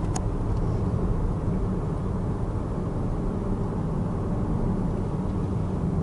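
Steady road and engine noise of a car driving on a highway, heard from inside its cabin: an even low rumble with no sudden changes.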